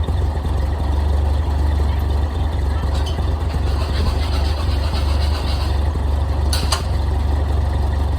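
Ford 2N tractor's four-cylinder flathead engine idling steadily while it warms up, with two sharp clicks about six and a half seconds in.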